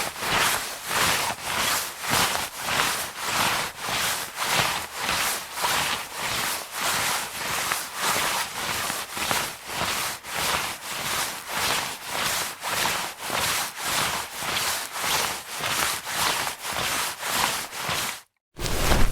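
Jacket fabric rubbing and swishing in a steady rhythm of about two strokes a second, stopping abruptly near the end.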